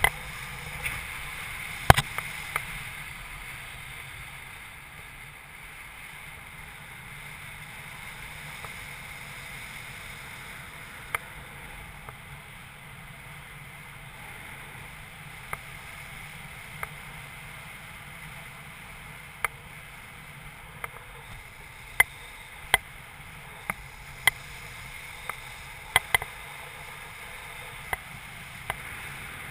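Steady rush of air over a paraglider pilot's camera microphone in flight, broken every few seconds by sharp clicks.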